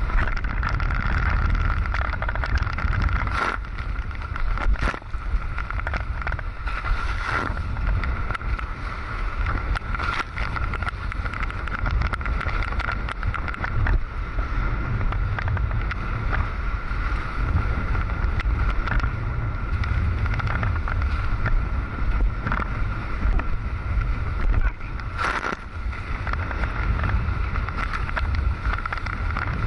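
Wind buffeting a camera microphone and water rushing past a Hobie 16 catamaran's hulls as it sails fast, with a steady high-pitched whine running through. A few sharp knocks or slaps stand out, about three and a half, five and twenty-five seconds in.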